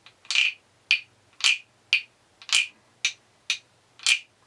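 Thai wooden percussion frogs croaking as a stick is scraped along their ridged backs: a series of short rasping croaks, about two a second.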